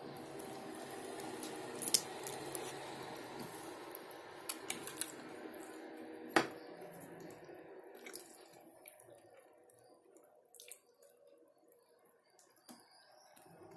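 Close, wet chewing and mouth sounds of someone eating meat-stuffed bell peppers, with a few sharp clicks, the loudest about six seconds in.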